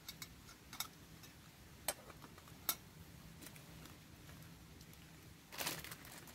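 A wood campfire crackling: sparse, sharp pops and ticks a second or so apart, with a short rustle about five and a half seconds in.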